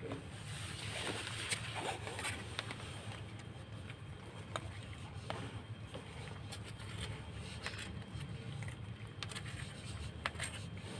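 Kittens and a cat crunching dry kibble, with scattered small clicks of the pellets and a plastic spoon pushing them across cardboard, over a steady low hum.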